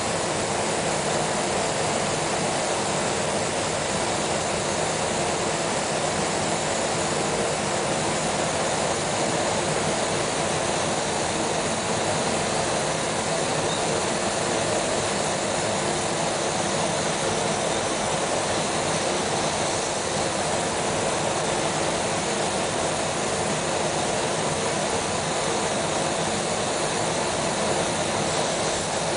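Steady, even rushing noise with no breaks or rhythm, like moving air or a running machine.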